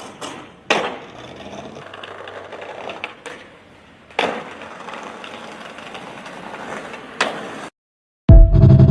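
Skateboard wheels rolling on hard ground, with three sharp clacks of the board a few seconds apart. After a brief silence near the end, a loud musical chord comes in.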